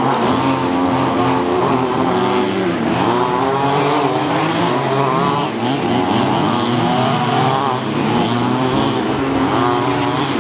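Several HPI Baja 1/5-scale RC buggies' small two-stroke petrol engines revving up and down, their pitches overlapping and sliding as they race.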